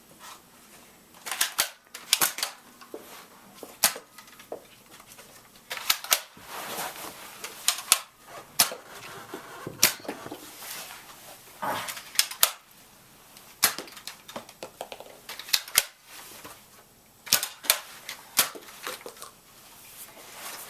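Nerf blasters firing foam darts, one sharp pop or clack at a time at irregular intervals of a second or two, with darts knocking into small plastic toy soldiers and cannons.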